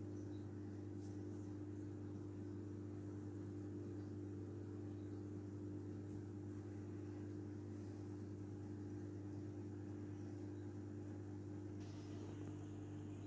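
Aquarium filter pump running with a steady low hum.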